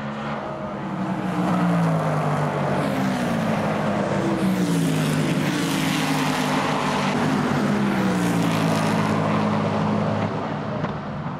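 Formula 5000 racing cars' V8 engines at full throttle, passing and pulling away. The engine note climbs in pitch and drops back several times as they shift up through the gears, then fades near the end.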